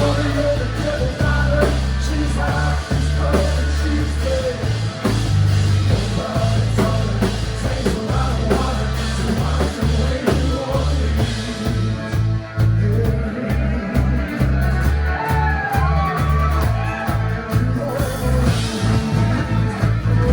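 Live rock band playing an instrumental break: loud, steady bass and drums with melody lines on top.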